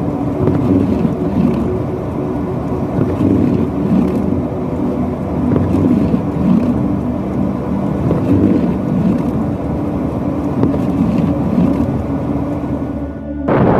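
A motor running steadily with a low rumble and wind noise, cut off abruptly near the end.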